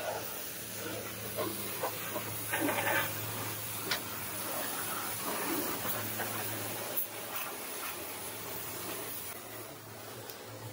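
High-pressure washer jet spraying a car's underside and wheel well, a steady hiss of water over a low steady hum, with a few short clicks and knocks.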